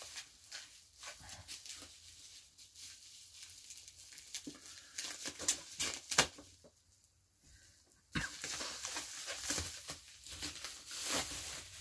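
Bubble wrap crinkling and crackling as it is unwrapped by hand from a small boxed figure, with sharp crackles throughout; it goes quiet briefly about seven seconds in, then the rustling picks up again.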